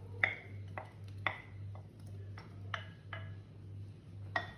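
A kitchen utensil clinking against a ceramic bowl and a glass mixing bowl, about eight irregular ringing taps, as courgette matchsticks are scraped into the batter. A low steady hum runs underneath.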